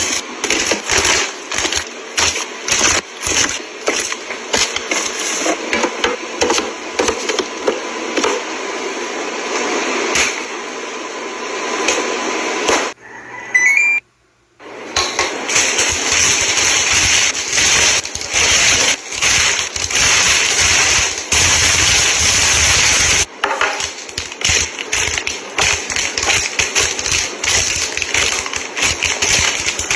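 Close handling of food packaging and plastic containers: crinkling and rustling wrappers with quick clicks and knocks of trays and clear acrylic bins being set down. The sound cuts out briefly about 13 seconds in.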